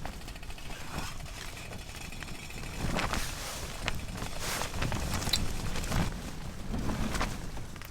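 Wind making a steady low rumble, with scattered short rustles and clicks, several in the second half.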